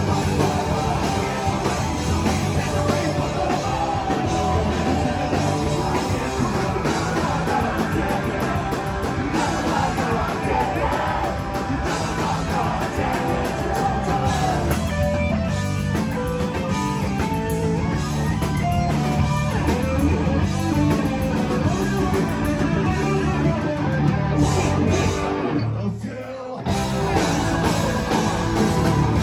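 Live punk rock band playing: electric guitar, bass and drums with a singer's vocals. Near the end the band stops for about a second, then comes crashing back in.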